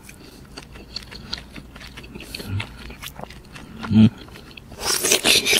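Close-miked eating sounds from a baked mussel: soft mouth clicks and smacks, then, as the shell reaches the mouth near the end, a loud slurp of the mussel being sucked off its half shell.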